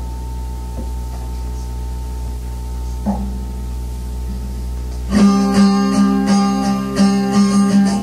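Guitar on an old home cassette recording: a steady low hum with a faint held note and a single plucked note, then guitar chords start about five seconds in, struck in a regular rhythm.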